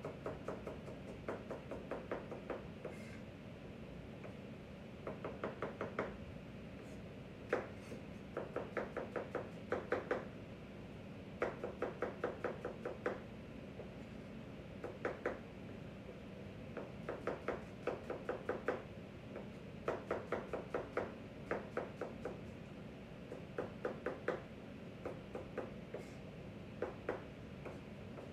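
Knife chopping vegetables on a cutting board, in quick runs of rapid strokes broken by short pauses.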